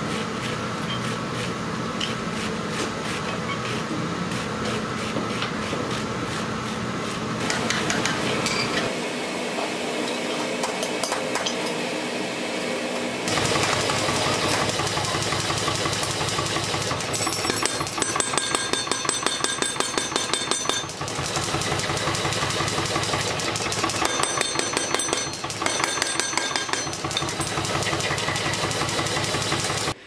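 Power hammer running, striking hot steel with rapid, evenly spaced blows over a steady machine hum. About 13 seconds in the blows get heavier and deeper.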